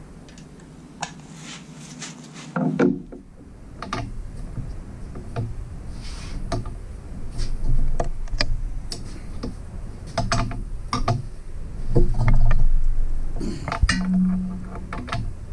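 Metallic clinks, clicks and knocks of a breaker bar and socket being fitted onto the bearing cap bolts of a Jeep 4.0 inline-six and pulled to crack them loose, one bolt much tighter than the other.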